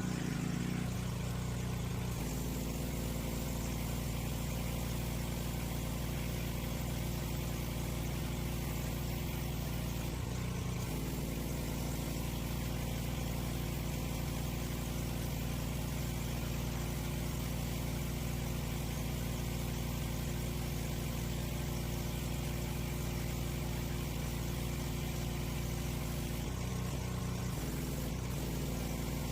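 Petrol engine of a pressure washer running at a steady speed, with a steady hiss over it from the water spray. The engine note shifts briefly twice, about a third of the way in and near the end.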